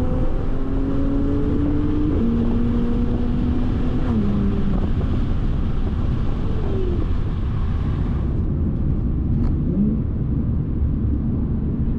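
Supercharged Audi V6 engine pulling gently, its note climbing slowly and stepping down twice in the first four seconds, as at gear changes or a lift of the throttle. After that the engine note fades and steady road and wind noise takes over.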